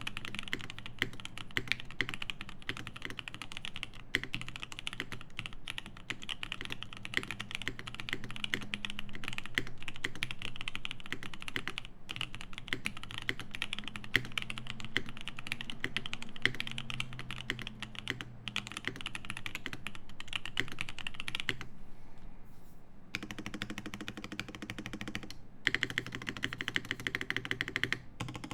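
Bauer 2 mechanical keyboard with lubed OP Black switches on a polycarbonate plate and GMK keycaps, being typed on quickly and continuously. The typing stops for about a second and a half around 22 seconds in, then resumes.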